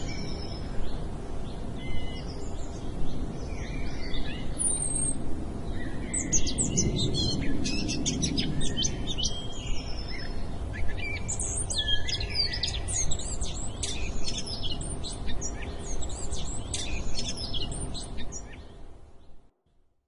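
Many birds chirping and calling in overlapping short trills over a steady low background rumble, fading out near the end.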